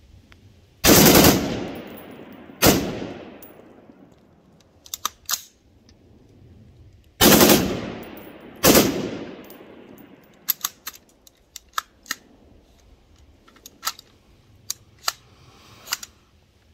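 Rifle gunfire: four loud shots in two pairs, the shots in each pair about two seconds apart and the pairs several seconds apart. Each shot trails off in a long echo, and lighter sharp clicks follow in the second half.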